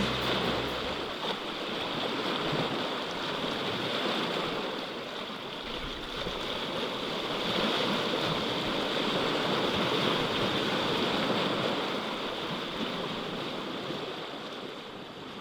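Water rushing steadily, fading down over the last few seconds.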